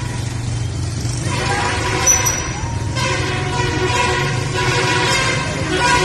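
Bus engine running with a multi-tone "telolet" horn playing its tune over it. The horn tones come in about a second in and change pitch in steps.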